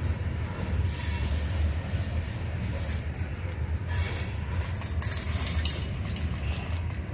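Freight train of covered hopper cars rolling past at close range: a steady low rumble of wheels on rail, with scattered clicking and rattling over it.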